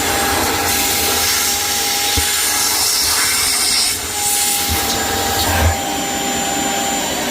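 Vacuum cleaner running with its crevice tool, sucking loosened hair and soap gunk out of a front-load washer's door-seal drain hole: a steady motor whine and airflow, with the sound shifting as the nozzle moves and a few light knocks of the nozzle.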